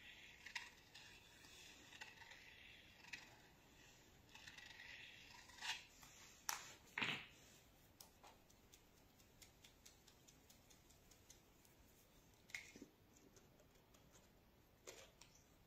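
Faint scratching of a thin paintbrush drawn over paper, then a few light taps and clicks as the brush is laid down and an ink bottle is handled.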